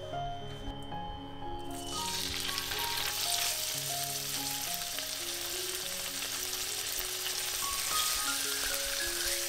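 Chunks of raw pork neck laid into hot vegetable oil in a frying pan, sizzling as they start to sear; the sizzle starts about two seconds in and grows as more pieces go in.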